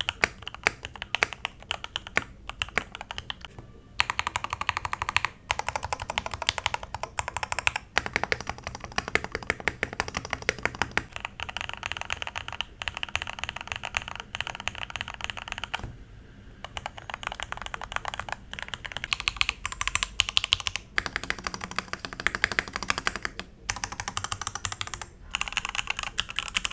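Typing on a Thunderobot K98 mechanical keyboard, which has been tape-modded, has lubed switches and keeps its thick stock keycaps. It makes rapid, continuous key clacks, with brief pauses about 16 seconds in and twice near the end.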